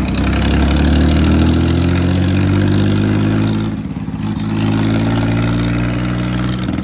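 Mahindra 265 DI tractor's three-cylinder diesel engine running steadily as the tractor drives along the road, heard from the driver's seat. About four seconds in the engine note drops briefly, then picks up again.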